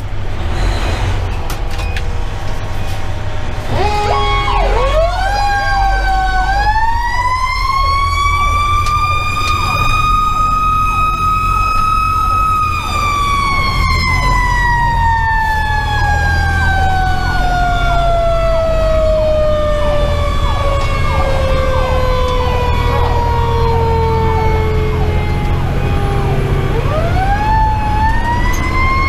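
Federal Q2B mechanical siren winding up a few seconds in, peaking, then coasting slowly down before winding up again near the end, with a faster repeating electronic siren sweep under it. The fire engine's Detroit Series 60 diesel rumbles steadily beneath, heard from inside the cab.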